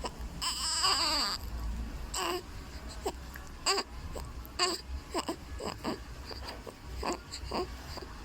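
Three-week-old baby crying: one long wavering cry about half a second in that falls away at its end, then a string of short fussy cries and whimpers.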